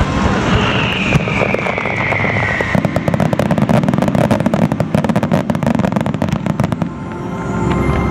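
Fireworks display: shells bursting, with a high whistle falling in pitch about a second in. Then a dense, rapid crackle of crackling stars that eases off near the end, before heavier bursts return.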